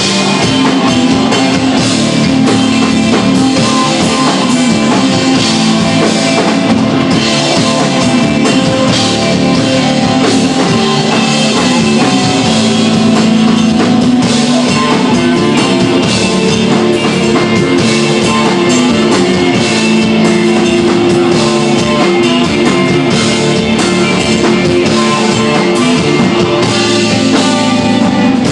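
Rock band playing live, with electric guitar and a drum kit, loud and continuous. The piece is instrumental desert rock.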